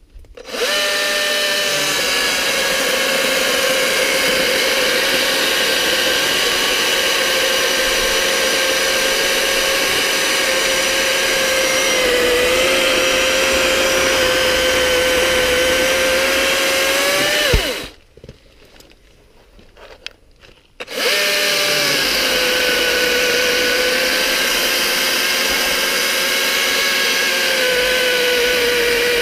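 Husqvarna 120i battery chainsaw running flat out with a steady high electric whine, its pitch sagging slightly twice as the chain bites into the log. About seventeen seconds in the trigger is released and the motor spins down with a falling whine; about three seconds later it starts up again and cuts on.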